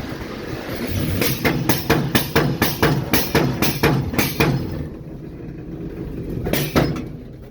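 A locomotive diesel engine runs steadily under a hiss of released air that fades in the first second. A quick run of sharp metallic knocks follows, several a second, from about a second in to about four and a half seconds, with one more knock near seven seconds.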